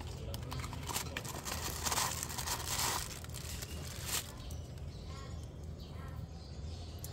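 Cardboard box being opened and a new paper oil filter element pulled out of its plastic bag: rustling and crinkling with small clicks, loudest in the first three seconds, and a sharp tap about four seconds in.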